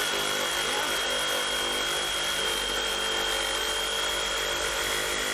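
Reciprocating saw running at a steady speed, its blade cutting into a thick tree trunk, with a steady high whine from the motor.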